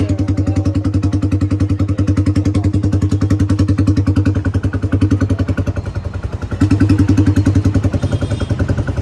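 Yamaha R15's single-cylinder four-stroke engine running at idle through an aftermarket exhaust silencer, with a steady, even pulse. It gets louder about six and a half seconds in.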